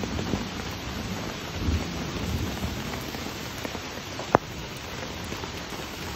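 Steady rain falling on the river and the vegetation of a thunderstorm, with a low rumble of thunder about two seconds in. A single sharp tap comes about four seconds in.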